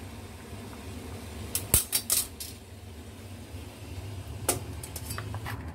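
Light metal clicks and clinks as a stainless steel bowl is gripped with a metal plate gripper and lifted off a steaming rack, a cluster about two seconds in and a few more near the end, over a steady low hum.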